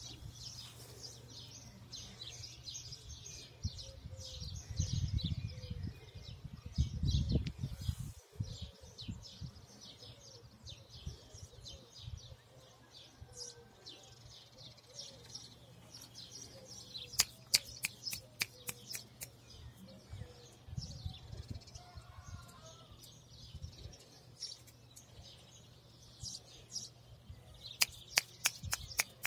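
Small birds chirping continuously in a dense chorus of high calls. A low rumble rises for a few seconds, and two runs of sharp, rapid clicks come about halfway through and again near the end.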